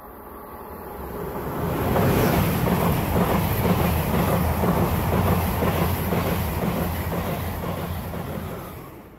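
ICE high-speed electric train passing at speed: the rush of wheels and air with a fast clatter of wheels on the rails. It swells about a second or two in and fades near the end.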